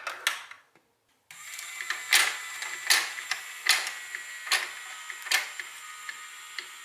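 A marble rattles briefly as it drops out of a plastic funnel. Then a motorized chain-lift elevator on a plastic marble run runs with a steady whirring motor tone and a loud plastic clack about every 0.8 s, five strong ones followed by fainter ones.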